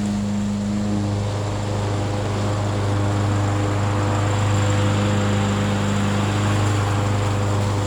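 Murray 22-inch self-propelled lawn mower's engine running at a steady speed, a constant low drone.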